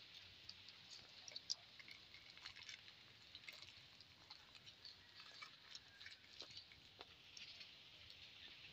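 Faint crackling and ticking of a wood fire burning under a wok, over a low steady hiss.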